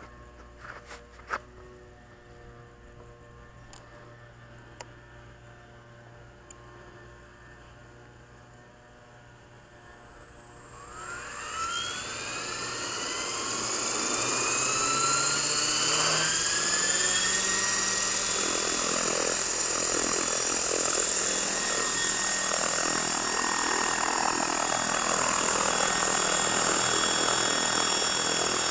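Frenzy 600E electric RC helicopter spooling up on a 5S battery: after a low background with a few faint clicks, a high motor whine starts about ten seconds in and rises in pitch over several seconds as the main rotor comes up to speed. It then settles into a loud, steady whine with rotor blade noise as the helicopter lifts off into a hover.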